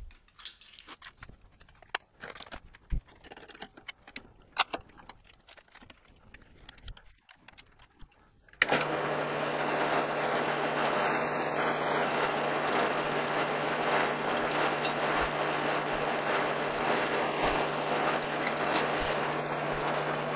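Light metallic clicks and clinks of a steel plate and tools being handled, then a drill press motor switched on about eight seconds in, running with a steady hum while it is used to deburr freshly drilled bolt holes in a metal plate.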